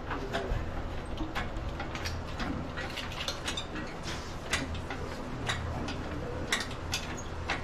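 Light, irregular metallic clicks and clinks, a few each second, from an engine hanging on a shop crane as it is eased down into a car's engine bay, over a low steady hum.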